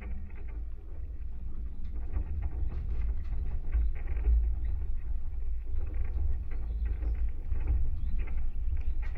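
Structure-borne vibration of a wooden maypole and its radiating stay wires, heard through contact microphones fixed to it: a deep, steady rumble with dense crackling and ticking on top, slowly growing louder over the first couple of seconds.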